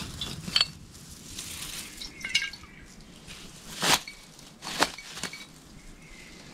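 A glass sap-collecting bottle and the tube tap in a birch trunk being handled: a handful of short light clinks and knocks, one ringing briefly like glass, the loudest about four and five seconds in.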